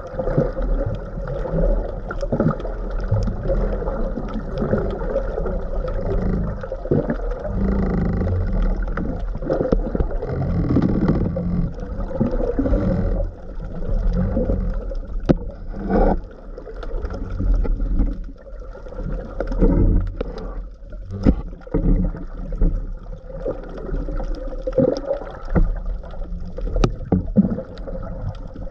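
Underwater noise picked up by a camera in its waterproof housing while a spearfisher swims: a steady rush and rumble of moving water with scattered clicks and knocks.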